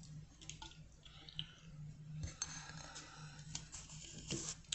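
Faint sound of beer pouring from an aluminium can into a glass and its thick head of foam fizzing, with a few light clicks and knocks as the can and glass are handled, over a low steady hum.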